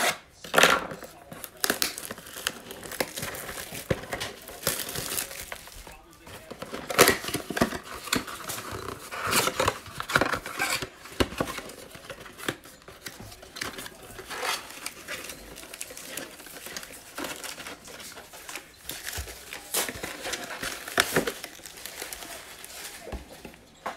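Crinkling, rustling and tearing of a trading card mega box being unwrapped and opened: its wrapper is pulled off and crumpled, the cardboard flaps are folded back, and the packs inside are handled. The sound comes in irregular crackles and rustles throughout.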